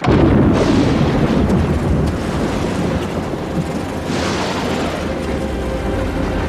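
A thunderclap that cracks in suddenly and loud, then a long rolling rumble that swells again about four seconds in.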